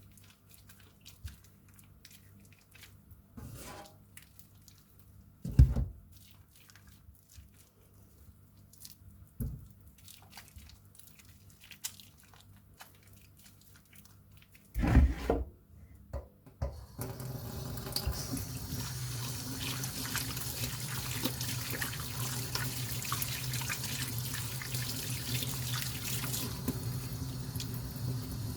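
A few scattered knocks and thumps, then about halfway through a water tap starts running steadily into a sink.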